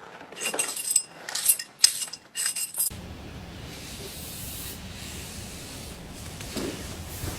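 Scissors cutting through a thick hank of long hair: four crunchy snips with a faint metallic ring in the first three seconds. A steady hiss follows.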